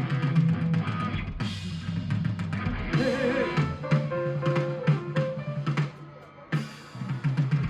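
Rock band playing live, the drum kit prominent with bass and electric guitar. The band comes in abruptly, drops out briefly about six seconds in, then comes back in.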